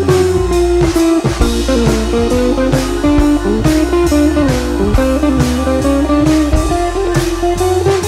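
Instrumental background music: a melody line over a steady, regular beat.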